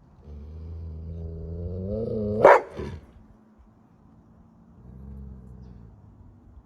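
A dog growling low and rising, breaking into one sharp, loud bark about two and a half seconds in, then growling again more quietly.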